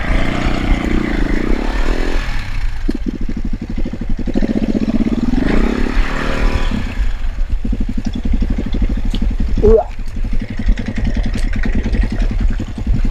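KTM 450 EXC single-cylinder four-stroke engine running at low revs with even firing pulses. It is revved up and down twice, at the start and about six seconds in. A sharp clatter comes near the end.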